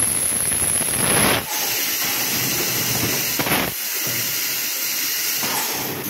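Automatic PET bottle blow moulding machine running, with a steady hiss of compressed air. The low rumble drops away about a second and a half in, and a short, louder blast of air comes about three and a half seconds in.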